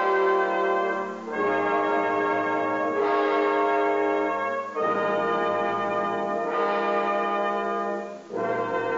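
Film score music: held, bell-like brass chords, each chord changing to the next about every three and a half seconds.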